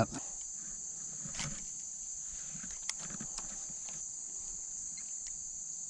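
Steady high-pitched chorus of insects trilling, with a couple of faint clicks.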